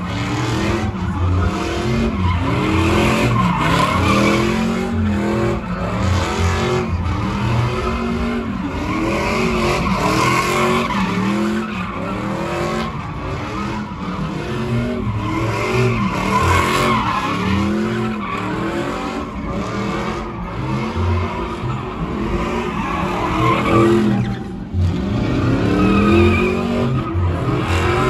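Lowered Chevrolet pickup doing donuts: its engine revs up and falls back about once a second while the rear tires spin and screech on the asphalt.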